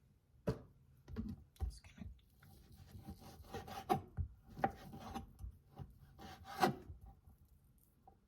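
Knife slicing grilled chicken on a cutting board: scraping strokes with a few sharp knocks of the blade on the board.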